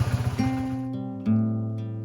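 Acoustic guitar background music, with plucked notes ringing out; under it at first the Honda FTR250's single-cylinder engine idles with a rapid even pulse that fades away about a second in.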